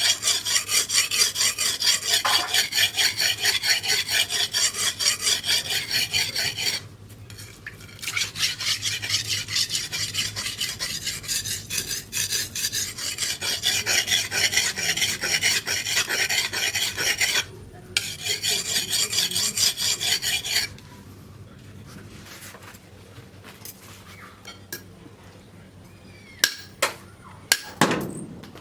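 A steel blade being worked by hand against an abrasive, giving rapid back-and-forth rasping strokes. The strokes come in three long runs, pausing briefly about seven and seventeen seconds in and stopping about two-thirds of the way through. A few sharp knocks follow near the end.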